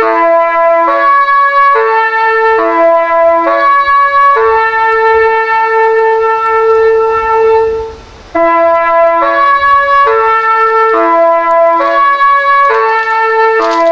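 Meitetsu 2000 series μSKY train's music horn playing its tune: a run of short pitched notes, each sounding as two tones together, then one long held note. It stops briefly about eight seconds in, and the tune starts over.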